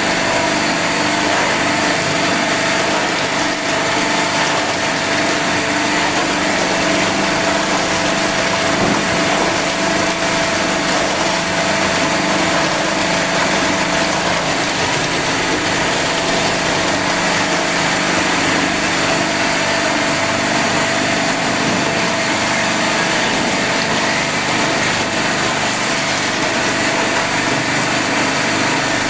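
Crystal tube-ice machine running steadily: a constant mechanical hum and hiss with a few unchanging tones.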